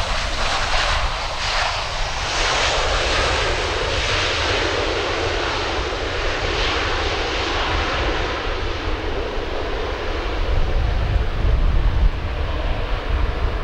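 Boeing 737-800 freighter's twin CFM56 turbofan engines running during the landing roll just after touchdown, a loud broad rushing noise. It slowly eases in the second half as the jet slows and moves away.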